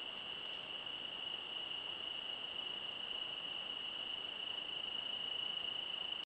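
A steady, unbroken high-pitched trill of crickets calling at night, over a faint even hiss.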